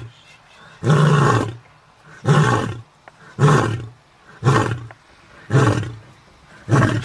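White lion giving a series of deep grunting roars, six in a row about a second apart.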